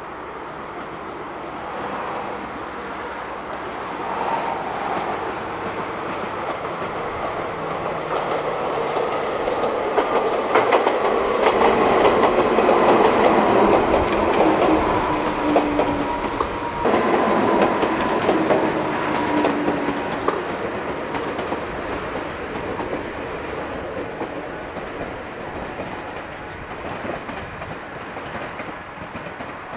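Ichibata Electric Railway 3000 series electric train, an ex-Nankai 21000 series, passing by. Its wheels clack over the rail joints over a rumble, with a faint whine that falls slightly in pitch. The sound grows louder, peaks in the middle and fades as the train moves away.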